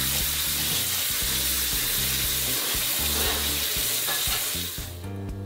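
Water poured from a pot splashing over spaghetti in a metal colander in a steel sink, a steady hiss that stops near the end.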